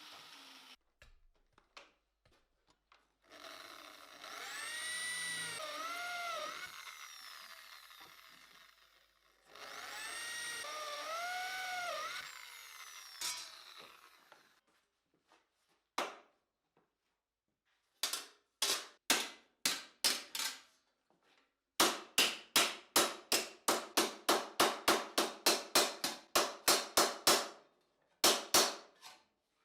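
Two spells of a power tool working sheet steel, with a wavering squeal, then hammer blows on the steel plate: a few scattered strikes, then a fast steady run of about three a second.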